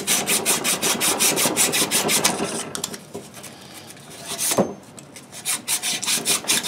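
Sandpaper scrubbing the outside of a copper pipe in quick back-and-forth strokes, about five a second, to clean the pipe before a saddle valve is clamped on. The strokes pause midway, with a single knock, then start again near the end.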